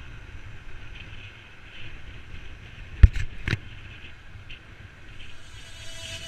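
Steady rolling and wind noise of a pack of inline speed skaters moving over asphalt, with two sharp knocks about three seconds in, half a second apart.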